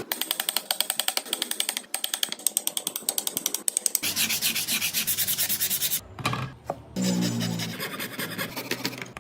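Rapid back-and-forth strokes of an abrasive on wood, about six a second: a hand sanding or rasping a wooden carving. The stroking changes character partway through, with a brief lull and a low hum near the end.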